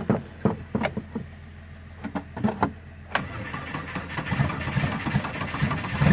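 Cold start of a 1988 Suzuki Samurai's swapped-in 1.6L VW diesel engine, glow plugs pre-heated: the starter cranks it over in even strokes, about three a second, and the engine catches about three seconds in, then runs and grows louder near the end.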